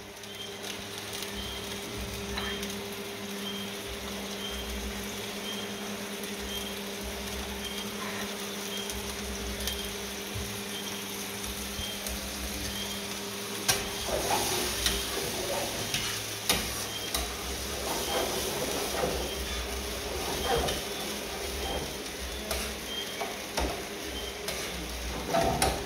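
Chopped tomatoes, onion and garlic sizzling in coconut oil in a non-stick frying pan on a gas burner. From about halfway through, a spoon stirring and scraping in the pan, over a steady low hum that stops at that point.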